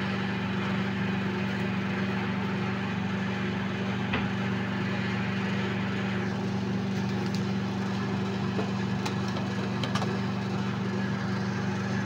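Steady low electrical hum of equipment running under load, with a few faint clicks.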